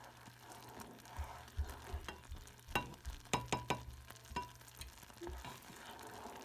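Saucepan of butter, sugar and milk at a full boil, bubbling and sizzling as a plastic spatula stirs and scrapes through it. A cluster of sharp clicks around the middle as the spatula knocks against the pan.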